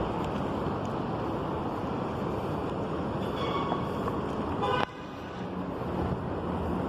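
Steady outdoor vehicle or traffic noise with a brief horn-like tone about three seconds in, cut off suddenly near five seconds, after which a steady low engine hum runs.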